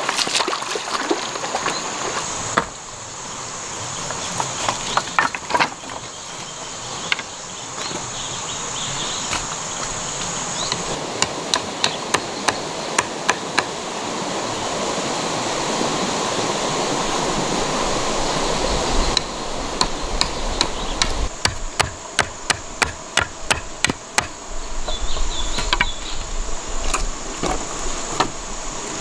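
Machete blade chopping a wooden stick into a point against a log, in two runs of quick, evenly spaced knocks of several strikes a second. Insects drone steadily in the background.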